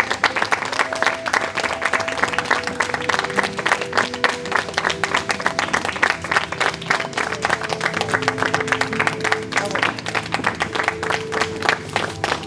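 Audience applauding with dense, continuous clapping over music playing a slow melody of held notes.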